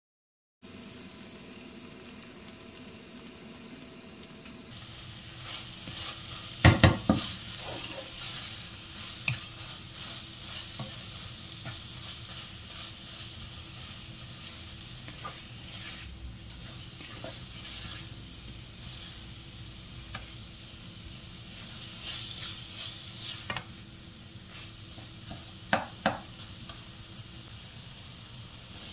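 Shredded chicken and onions sizzling in a frying pan while a spatula stirs and scrapes them, with a few sharp clacks of the spatula against the pan. The loudest clack comes about seven seconds in, and there is a quick double clack near the end.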